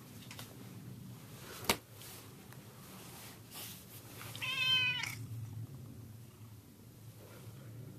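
Domestic cat giving one short meow about halfway through. A single sharp click sounds a couple of seconds before it.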